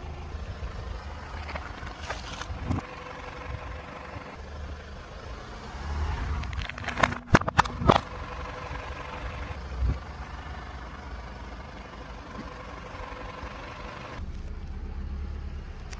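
Car tyre rolling slowly over objects on asphalt: a low rumble from the tyre and idling car. About seven seconds in comes a quick run of sharp cracks and crunches as something is crushed under the tyre.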